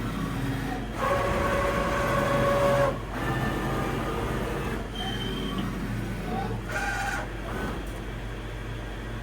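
Walter Helitronic Power Regrinder CNC tool grinding machine running, with a steady low hum. A loud pitched whine comes in about a second in and stops sharply about three seconds in. Shorter whines follow, including a brief high tone about halfway through and quick rising whines near the end.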